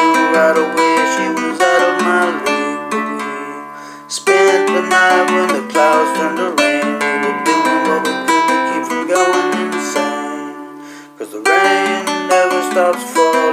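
Acoustic guitar played solo, an instrumental passage of plucked chords and single notes. Twice, about four seconds in and near eleven seconds, the playing pauses and the last notes are left to ring out and fade before it picks up again.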